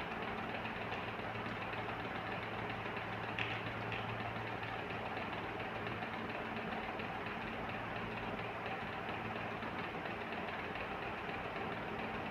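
Steady machine-like hum with a hiss underneath, holding a low and a slightly higher tone, with one small click about three and a half seconds in.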